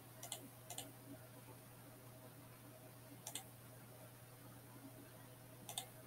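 Computer mouse button clicking: four short, sharp clicks spread over a few seconds, over a faint steady hum.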